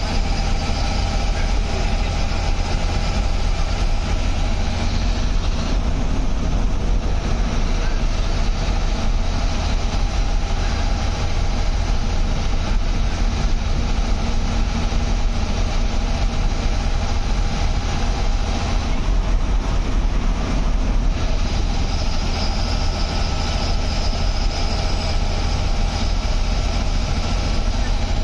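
Bus engine and road noise heard from inside the cab while cruising on a highway: a loud, steady low drone.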